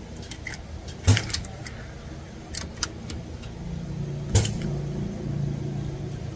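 Two .22 rimfire rifle shots about three seconds apart, each a sharp crack, with a couple of lighter clicks between them. A low steady hum rises in the background from about four seconds in.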